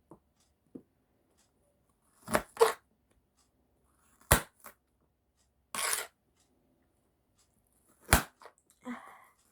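A kitchen knife cutting an onion on a cutting board: a few sharp knocks of the blade on the board, several seconds apart, and one short scraping rasp about six seconds in.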